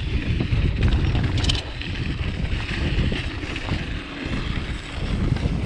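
Wind blowing across the microphone over the rumble of a mountain bike rolling along a dirt trail, with a short rattle of clicks about one and a half seconds in.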